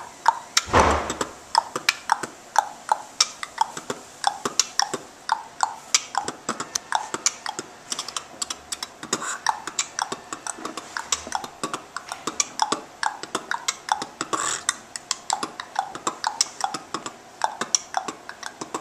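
Beatboxing through hands cupped over the mouth: a steady rhythm of sharp clicks and snare-like hits, with a deep bass hit about a second in.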